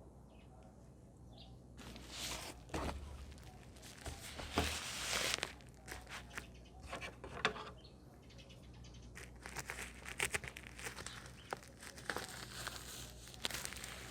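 Packaging being handled and unwrapped by hand: irregular crinkling and rustling with sharp clicks and taps, starting about two seconds in.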